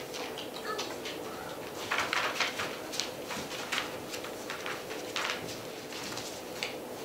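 Gordon Setter puppies scrambling around their mother on a paper-covered floor: irregular bursts of paper rustling and claws scratching, busiest about two to three seconds in and again past five seconds, with a few faint puppy squeaks.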